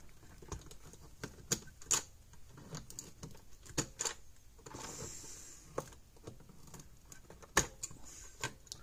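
Irregular clicks and snaps of needle-nose pliers pulling spade connectors off a fence energizer's circuit board and the board being handled inside its plastic case. The loudest snap comes about three-quarters of the way through.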